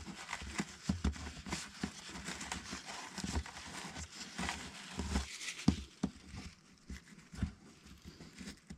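Irregular scraping and rustling as caked dirt and mud are cleaned from around an ATV's oil drain plug, with small clicks and a few low thumps.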